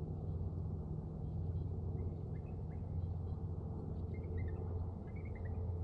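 Faint, short chirps of small birds, a few about two seconds in and a cluster near the end, over a steady low rumble.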